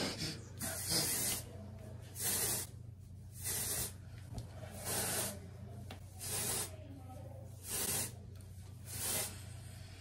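Aerosol can of dry shampoo sprayed onto hair in about seven short hissing bursts, roughly one every second and a half.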